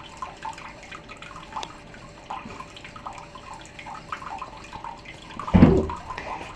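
Water running from a bathroom washbasin tap, with small knocks against the basin. A loud thump about five and a half seconds in as the cat jumps off the sink.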